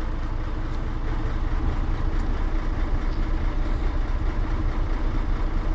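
Mercedes-Benz truck's diesel engine idling steadily, a low even rumble with a slight pulse.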